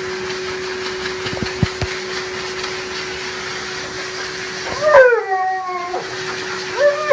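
Pet grooming dryer blowing steadily with a constant hum; about five seconds in, a husky-type dog howls, one long howl falling in pitch followed near the end by a second, shorter howl.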